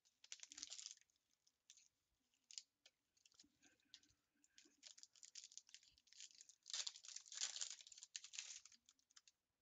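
Faint crinkling of foil trading-card pack wrappers as packs are handled and opened, with one longer spell of crinkling about seven seconds in.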